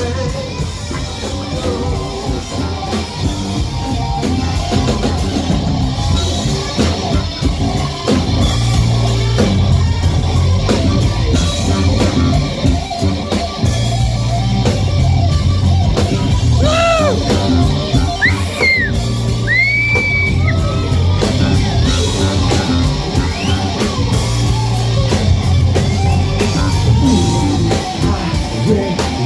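Live funk band playing loudly: a drum kit, electric bass, electric guitar and keyboards, with singing over them.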